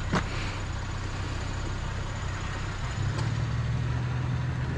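Engine idling with a steady low hum, with a light click just after the start; the hum grows a little louder about three seconds in.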